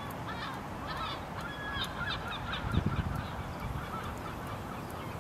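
Waterbirds calling: many short, arching calls overlapping one another, over a low wind rumble, with one louder low thump a little past the middle.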